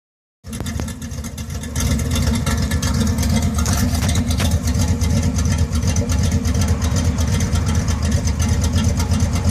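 Chevrolet 305 small-block V8 with a Crane 274H06 camshaft idling cold with a lumpy, choppy rough idle. It starts about half a second in and gets louder about two seconds in.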